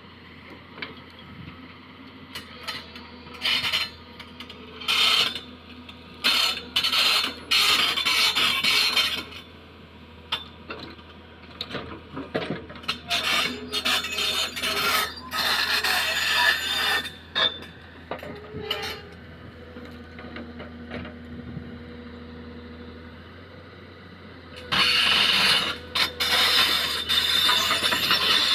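Crawler excavator's diesel engine running steadily while its steel bucket scrapes and grinds through soil and stones in repeated loud spells. Near the end a longer spell of grinding and squealing comes as the machine crawls forward on its steel tracks.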